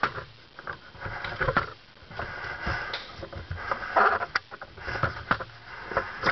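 Handling noise as a camera is moved and repositioned: irregular clicks and short rustles, with no steady tone.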